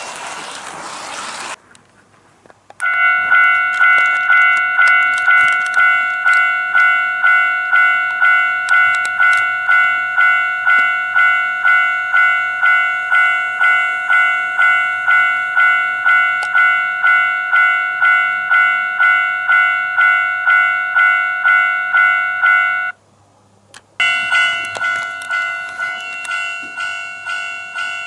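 Level-crossing warning alarm on a toy model-railway crossing, ringing in a steady clang at about two strikes a second. It starts about three seconds in, cuts out for a second near the end, then starts again. Before it, about a second and a half of rolling noise from a camera car running on HO track.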